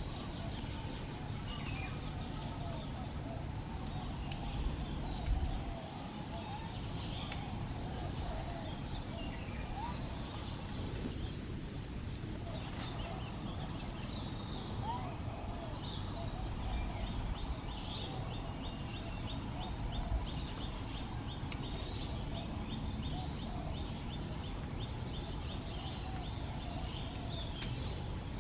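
Outdoor ambience of small birds chirping over a steady low rumble, with a long run of fast, even high ticks in the second half.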